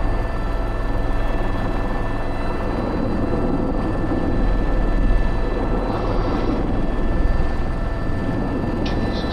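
Airbus H125 helicopter in flight, heard from on board: the steady beat of the main rotor under the constant whine of its turboshaft engine.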